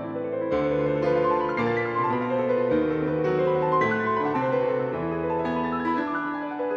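Background piano music, a melody of sustained notes over changing bass notes.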